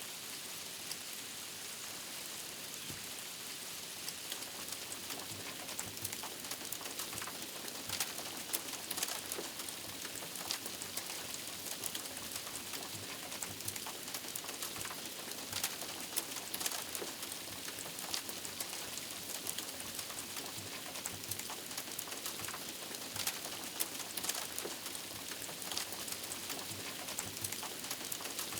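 Freezing rain pattering on a hunting blind: a steady hiss dotted with many small, sharp ticks that come more often after the first several seconds.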